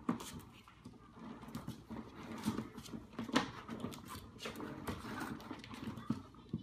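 A puppy scrambling around a plastic sit-and-spin toy on a hard floor: irregular clicks, knocks and scuffs of claws and plastic.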